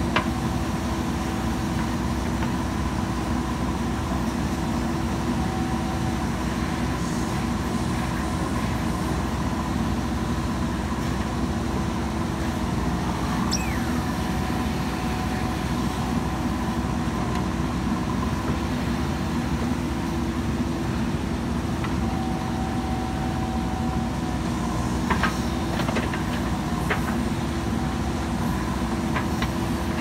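JCB 3DX backhoe loader's diesel engine running steadily as the backhoe digs. A few short, sharp knocks come through, mostly about 25 seconds in.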